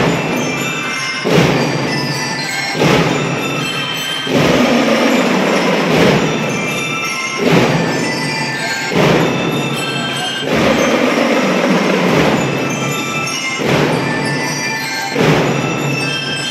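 A marching drum and bugle corps playing live: marching drums strike a heavy accent about every second and a half, under a ringing melody from bell lyres.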